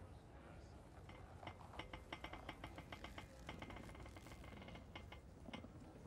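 Faint slow creaking: a run of small clicks, several a second, as the sloth clerk slowly leans forward toward his keyboard. It starts about a second in and thins out near the end.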